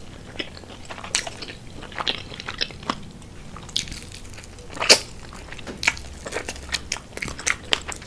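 Close-miked chewing and crunching of crispy fried chicken wings: irregular crisp crunches with mouth sounds between, the loudest crunch about five seconds in.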